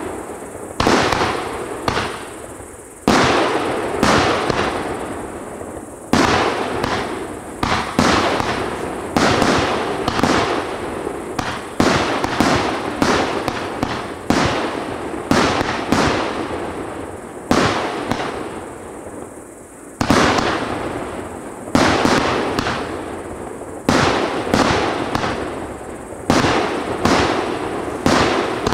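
TB 200 firework battery firing its shots one after another: about twenty sharp bangs, roughly one every second or so and sometimes two in quick succession, each dying away over a second as the shells burst high in the air.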